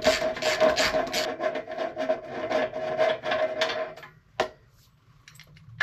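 Ratchet wrench clicking rapidly, about six clicks a second for about four seconds, as it unscrews the spark plug from a small single-cylinder clone engine, then a couple of single light clicks.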